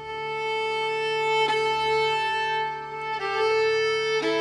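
Background music of slow, long-held notes, each note changing to the next a few times.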